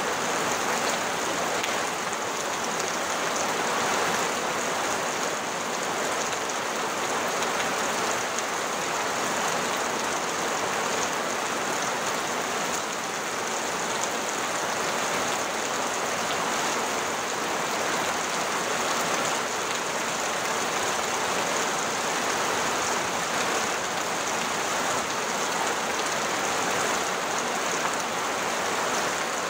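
Steady rain falling on a tin roof, with runoff water streaming off the roof's edge.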